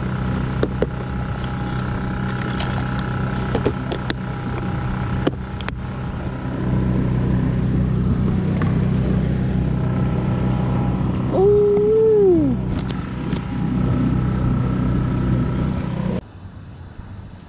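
A small fishing boat's motor running steadily, a hum with a thin whine over it, cutting off suddenly shortly before the end. About two-thirds of the way through a short whistle-like tone rises and then falls over about a second.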